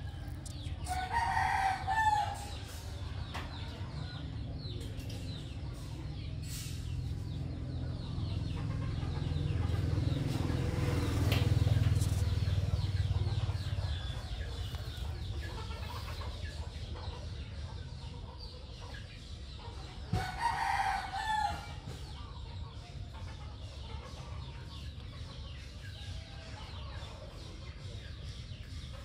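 A chicken calling twice, once about a second in and again about twenty seconds later, each call lasting just over a second, over a low rumble that swells and fades midway.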